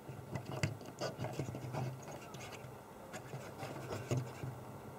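Faint, irregular scratching and small clicks of a fingertip wiggling a loose transistor on a circuit board, over a faint low hum.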